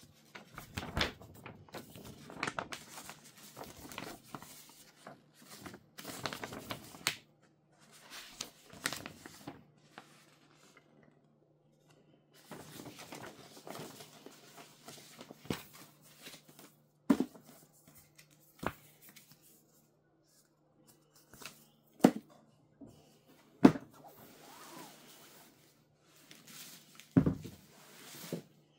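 Router packaging being unboxed: wrapping and cardboard rustling and tearing in irregular bursts, then several sharp knocks in the second half as parts are handled.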